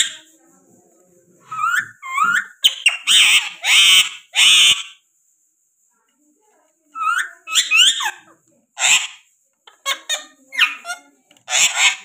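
Indian ringneck parakeets calling: runs of short, high-pitched squawks and chirps that bend up and down in pitch. They go quiet for about two seconds in the middle, then start again.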